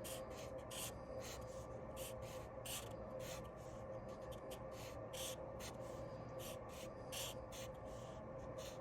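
Drawing strokes on paper: short, irregular scratches, about two or three a second, as patterns are drawn in, over a steady faint hum.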